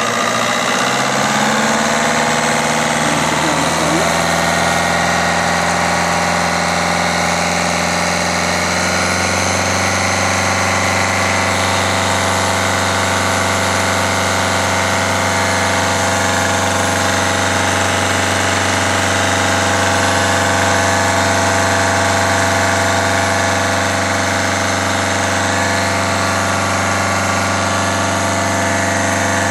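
Citroën/Peugeot 1.4 HDi (8HX) four-cylinder common-rail diesel with Siemens injection idling steadily in the engine bay, freshly rebuilt and reinstalled. Its idle note shifts slightly about nine seconds in, then holds even.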